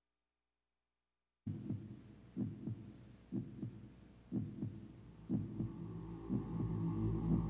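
Heartbeat sound effect: a slow double thump about once a second, starting about a second and a half in after silence, with a low droning hum swelling in under it from about halfway through.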